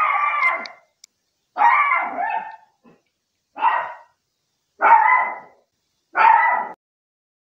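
A dog barks five times. The barks are drawn out and spaced one to two seconds apart.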